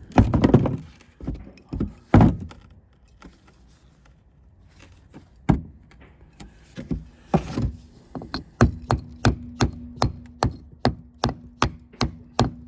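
Hammer striking a metal blade set in the crack of a Keokuk geode, tapping it to split the rock open. A few scattered strikes and scuffs come first, then a pause of a couple of seconds, then steady taps about three a second from about two-thirds of the way in.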